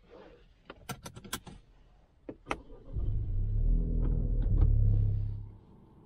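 Ford Puma ST's 1.5-litre three-cylinder turbo engine started from inside the cabin. A few sharp clicks come first; about three seconds in the engine catches with a loud, low flare that lasts about two and a half seconds, then drops back to a quiet idle.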